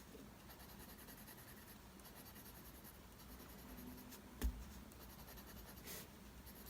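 Mechanical pencil lead scratching faintly on paper in short shading strokes, with a single sharp knock about four and a half seconds in.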